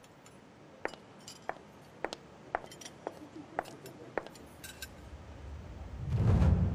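Suspense underscore: sparse light ticks about twice a second, then a low rumbling swell rising near the end that leads into the music cue.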